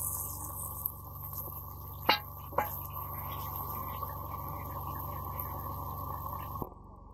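A metal fork clinking twice against a wide iron pan of eggplant and tomato sauce, about two seconds in, over a steady low hum that cuts off suddenly near the end.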